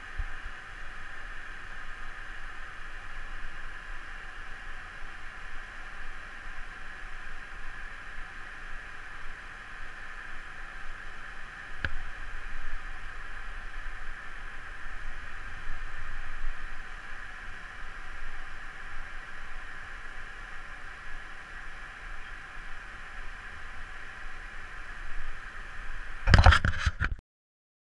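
A steady rushing noise with one short click about twelve seconds in. Near the end come loud knocks and rubbing as the camera is handled, and then the sound cuts off.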